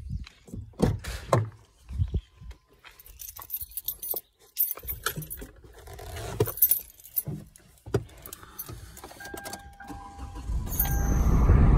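Car keys jangling amid clicks and knocks of getting into a car, then a few brief electronic tones and the car's engine starting near the end, its low rumble growing loud.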